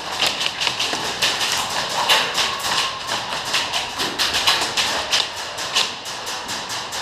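Airsoft guns firing in rapid volleys: a dense run of sharp snapping shots, several a second, with no break.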